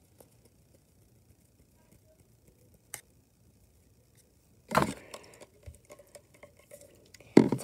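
Near silence for the first few seconds, with one faint click; then handling noise close to the phone's microphone as a plastic slime container is picked up: a loud knock about five seconds in, scattered crackling and clicking, and another knock near the end.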